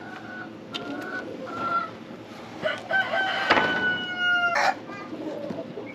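Rooster crowing once, a long call of a second and a half or more, after a few short clucking notes. A couple of sharp knocks fall around the crow.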